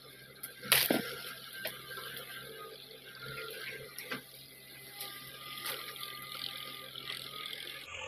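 JCB backhoe loader's bucket digging into soil, brush and roots, with sharp cracks and knocks, the loudest about a second in, over the machine's faint steady engine hum.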